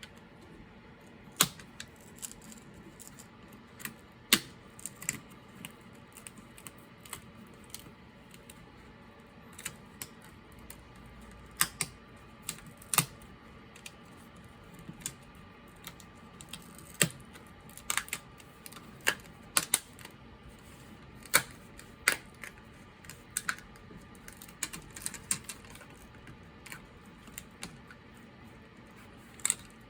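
Prying tool worked under the glued-in display panel of an HP Pavilion 15-cs laptop: irregular sharp clicks and ticks, a handful louder than the rest, as the tape and adhesive let go.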